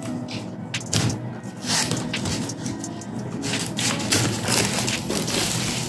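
Packaging handled and unsealed, with short crackles and rustles of the seal and cardboard box being torn open, over background music with a steady beat.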